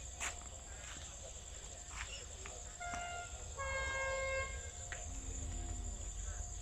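Distant train horn sounding twice, a short toot and then a longer blast, over a steady high insect drone.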